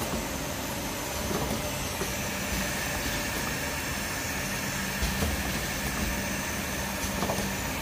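Automatic rotary perfume filling and capping machine running: a steady mechanical hum with a few light knocks and clicks.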